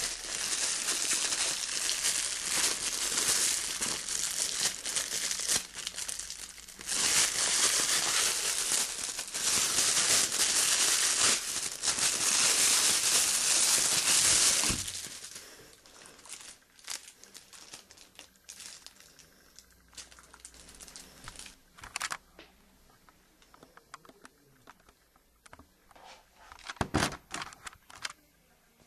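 Packaging crinkling and rustling as it is handled. It is loud and continuous for about the first half, with a short break a quarter of the way in. It then falls to quieter scattered rustles, with a few sharp knocks near the end.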